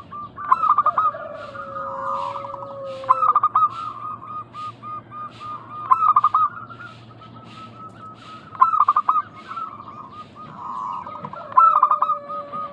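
Zebra doves (perkutut) cooing: a rapid run of short staccato coos that starts again about every three seconds, with a longer, lower held note under it twice.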